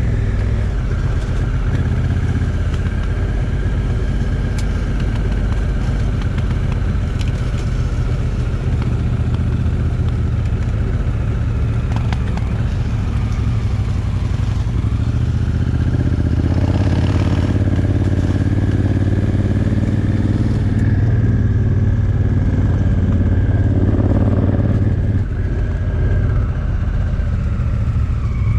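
Honda Africa Twin Adventure Sports' parallel-twin engine running on the move, heard from the rider's seat. It steadily drones and pulls a little harder for several seconds past the middle.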